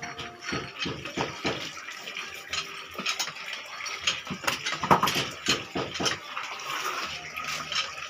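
Long knife chopping and cutting through a blue marlin's body to split it: a run of irregular knocks, the loudest about five seconds in, over a wet, watery noise.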